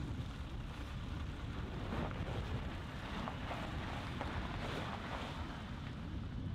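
Wind buffeting the microphone, a steady low rumble and hiss, with a large truck driving past behind the fence.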